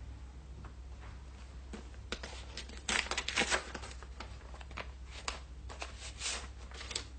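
Rustling, crinkling and light clicks, as of paper being handled, busiest about three seconds in and again near the end, over a steady low soundtrack hum.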